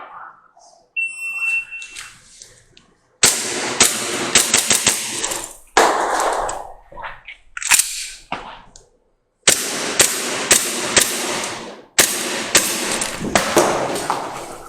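A shot timer gives a short start beep about a second in. From about three seconds in a WE Glock 17 gas blowback airsoft pistol fires strings of rapid sharp pops, with short pauses between the strings.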